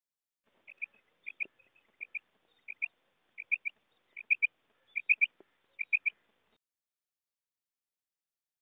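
Female quail calling: eight quick groups of two or three short, high notes, repeated about every two-thirds of a second, stopping about six seconds in.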